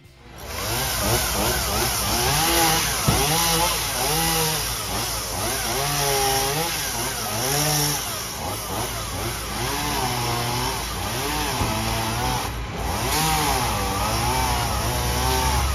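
Chainsaw engine revving up and down over and over as it cuts up cut magnolia limbs, its pitch rising and falling about once a second.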